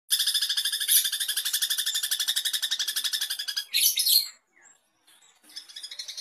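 Long-tailed shrike (cendet) singing a fast, even chattering trill of about ten high notes a second, broken around four seconds in by a few louder, harsher notes and a brief pause before the trill starts again near the end.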